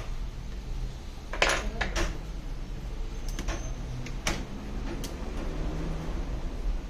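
Scattered clinks and taps of cutlery against dishes, about six in all, the sharpest about one and a half seconds in, over a steady low hum.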